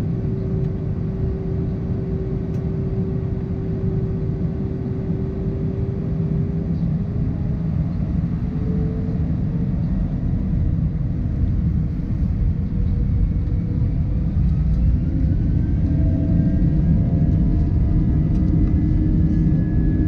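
Airbus A320 cabin noise over the wing: a steady low rumble under the hum of its IAE V2500 jet engines. The engine tones climb in pitch from about halfway through and it grows louder toward the end, as thrust comes up.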